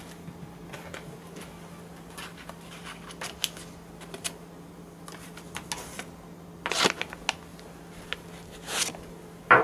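Rustling and scattered light clicks of close handling noise, with two louder rustles about seven and nine seconds in, over a faint steady low hum.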